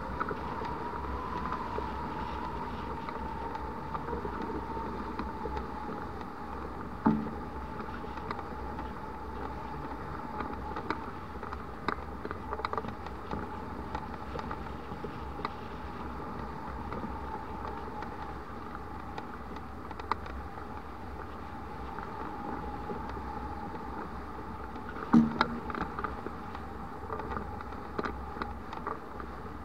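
Steady rush of air over a hang glider's microphone in soaring flight, with a faint steady tone that drifts slightly lower. Two sharp knocks come through, one early and one near the end.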